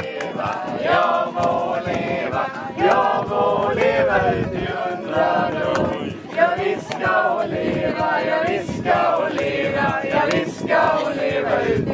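A group of voices singing together without instruments.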